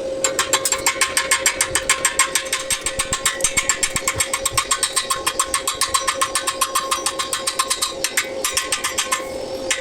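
Stick welding arc on steel reinforcing bar, crackling in a fast, even pulse of about six or seven bursts a second over a steady hum. The pulse breaks off briefly twice near the end, as the arc is interrupted.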